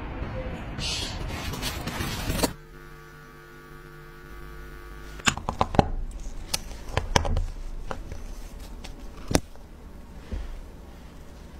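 A steady noisy hiss for the first two seconds or so, cut off abruptly. Then, over a faint steady hum, a series of sharp small clicks and taps as the metal case of an old Tissot automatic wristwatch is handled and worked on by hand, irregularly spaced, the loudest near the middle.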